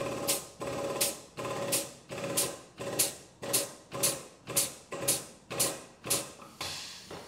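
Hydraulic pump of a chassis-straightening puller being worked in steady, regular strokes, just under two a second, each starting sharply and fading with a ringing tone, as the ram draws a crash-bent chassis leg back into line.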